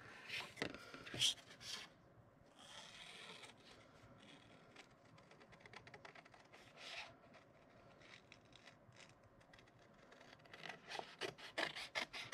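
Small scissors snipping through paper, faint, with soft rustles as the sheet is turned. A few cuts in the first couple of seconds, sparse small snips through the middle, then a quicker run of short snips near the end.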